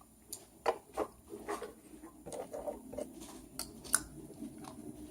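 Small plastic toy vehicles and their plastic garage cases clicking and tapping as they are handled and packed away. The light clicks come irregularly, the sharpest one just before four seconds in.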